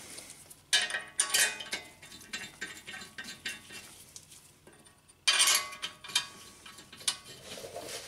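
Several long steel bolts clinking against one another in a gloved hand, in two bursts about a second in and about five seconds in, with lighter taps between.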